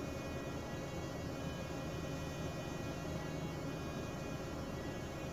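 Steady, unchanging hum of running machinery in a ship's fuel oil purifier room: pumps and electric motors, with several constant tones over a low rumble.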